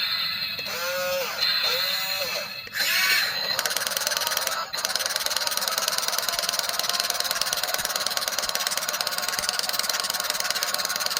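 A toy RC excavator's small electric motors and plastic gears whirring and buzzing with a fast ticking, steady from about three seconds in. Before that come two short rising-and-falling tones.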